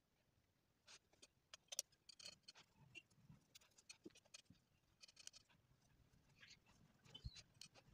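Faint, scratchy brush strokes and small clicks of a paintbrush working on sketchbook paper, with a soft knock near the end.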